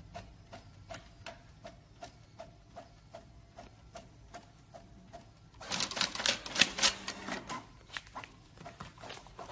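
A small desktop printer working: its mechanism ticks steadily about three times a second, then about six seconds in gives a louder run of rapid clicking and whirring, under two seconds long, as a printed sheet is fed out.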